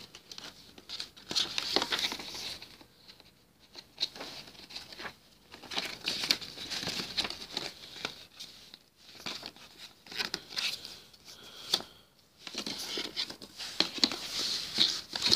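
Rustling and sliding of a glossy paper DVD booklet and cardboard fold-out case as they are handled and opened, in irregular clusters of crinkles and light clicks.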